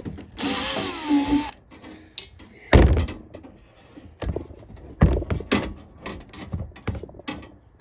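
A power screwdriver or drill runs for about a second, backing out a screw from the heater box. It is followed by a series of knocks and clunks from the parts being handled, the loudest about three seconds in and again near five seconds.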